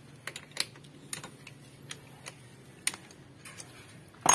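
Light metal clicks and taps of an 8 mm T-wrench socket being fitted onto and worked on the oil filter cover bolts of a Yamaha Sniper 155 engine, coming irregularly, with a louder ringing clink near the end.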